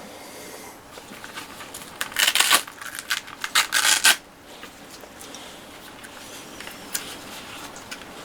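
Handling noise: two short spells of rubbing and scraping, about two seconds in and again around three and a half seconds in.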